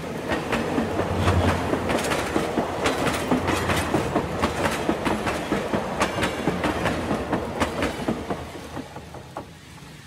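Model train cars rolling past close by, their wheels clicking over the rail joints in a quick, irregular clatter. The sound swells in the first second or two and fades away over the last couple of seconds as the cars move off.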